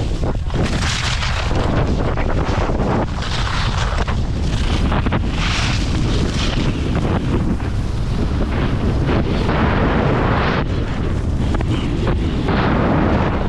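Wind buffeting the microphone: a loud, steady low rumble with gusts of hiss that rise and fall every second or so.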